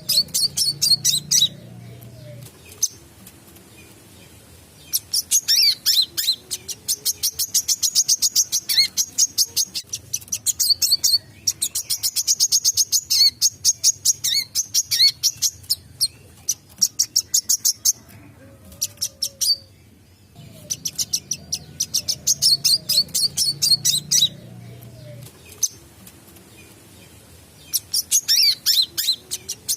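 Brown-throated sunbird (wiceh) singing in long bursts of rapid, sharp, high chirps, many notes a second, with short pauses between bursts.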